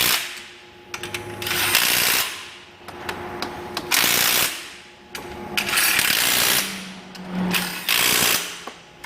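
Power tool run in about four bursts of roughly a second each, driving down the AC compressor's mounting bolts.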